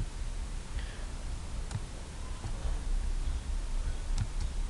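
A few sparse computer keyboard and mouse clicks over a low steady hum.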